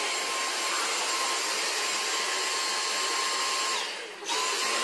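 Dyson DC59 cordless stick vacuum running with a steady whine over rushing air; the sound drops away briefly about four seconds in, then comes back up to full.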